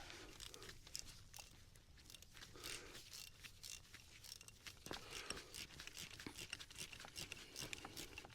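Faint, scattered scratching and small clicks of light abrasive rubbing: corroded electrical terminals on a glow plug relay being cleaned up by hand.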